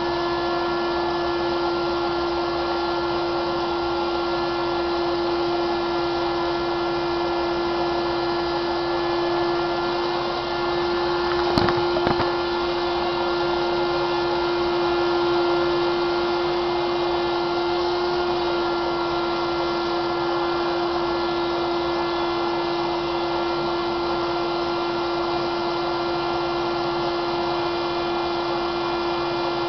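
Electric blower motor running steadily, with a constant whine and the rush of air being pushed through a hose to inflate a 350-gram latex weather balloon. A brief knock comes about twelve seconds in.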